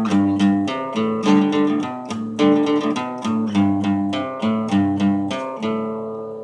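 Acoustic guitar strummed in a steady rhythm, the chords changing every second or so. Near the end a last chord is left ringing and fades away.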